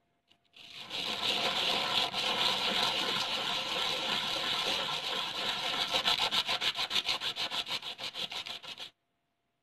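Crumbled naphthalene (mothball) pieces being scraped and ground into powder under a hand on a board: a continuous gritty scraping that turns into quick back-and-forth strokes, about six a second, in the second half and stops suddenly near the end.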